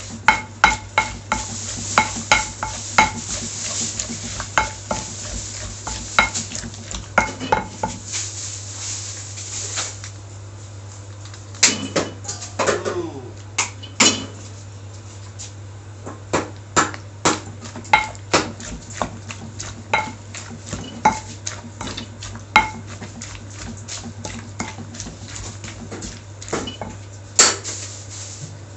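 Kitchen utensils clinking and knocking against bowls and dishes at an irregular pace, some knocks ringing briefly, with a scraping noise through the first third while food is mixed. A steady low hum runs underneath.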